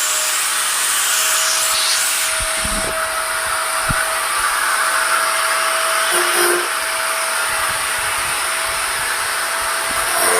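Ingco 750-watt angle grinder running steadily with a constant high whine. Right at the end it is switched off and starts to wind down, its pitch falling.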